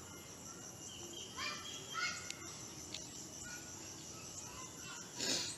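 Quiet outdoor background with faint bird calls about a second and a half in, then a short rustle just before the end.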